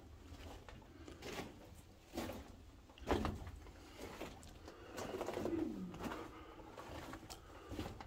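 Footsteps crunching and scuffing on loose rock rubble in a narrow mine tunnel, with sharp knocks here and there, the loudest about three seconds in. Around the middle there is a short low sound that slides down in pitch.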